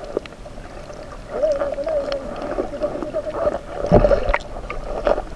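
Muffled sound picked up underwater by an action camera: a wavering hum that comes and goes, scattered small clicks, and a heavy knock about four seconds in.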